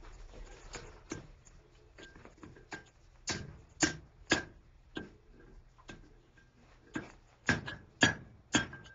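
Blacksmith's hammer striking hot steel on an anvil while forging a fishing gig: lighter taps in the first few seconds, then two runs of three heavy blows about half a second apart, each followed by a short ring from the anvil.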